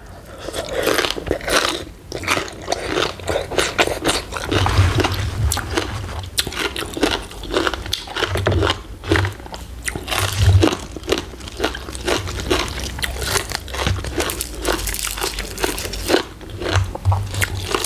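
A person biting and chewing som tam (shredded green papaya salad) with raw vegetables: many crisp crunches in quick, irregular succession.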